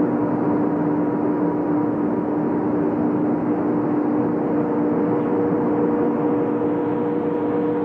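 Steady drone of factory machinery running outdoors: a constant rushing noise with a couple of fixed hum tones through it, unchanging throughout.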